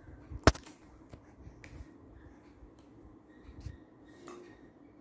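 One sharp, loud knock about half a second in, followed by a few faint clicks and soft rustles.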